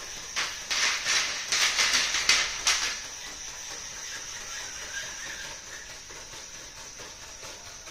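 3D-printed quadruped robot walking over a pile of cardboard scraps: a run of loud rustling, scraping crunches in the first three seconds as its feet hit and drag the cardboard, over the steady high whine of its Dynamixel XM430 servos, which grows fainter as the robot walks away.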